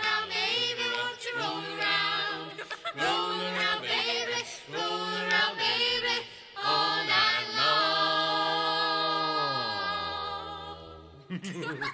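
Unaccompanied voices singing in close harmony, scat-like phrases ending on a long held chord whose lowest voice slides down before the sound fades out near the end.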